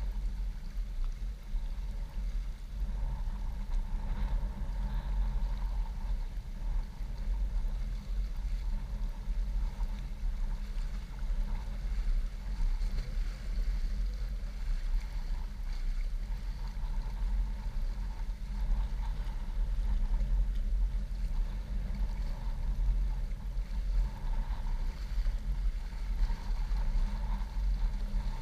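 Steady low rumble of wind buffeting the camera's microphone, with small waves washing against the shore rocks.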